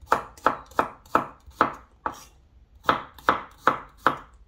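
Chef's knife slicing garlic cloves thinly on a wooden cutting board: nine sharp knife strikes on the board, about three a second, with a pause of about a second midway.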